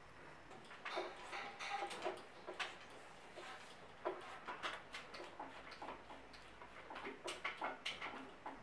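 Hands handling and fitting bicycle parts on a handlebar, brake levers and new grips. Irregular small clicks, taps and rustles.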